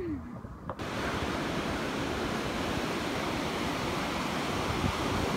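Steady rush of sea surf breaking on the shore, starting abruptly about a second in.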